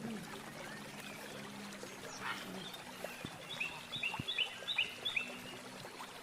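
A bird calling in a quick run of about six short high chirps in the second half, over a low steady hum.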